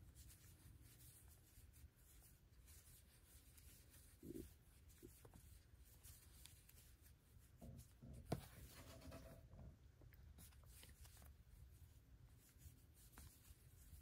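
Near silence with faint rubbing and rustling of a crochet hook working double-stranded cotton yarn, and one soft click a little past halfway.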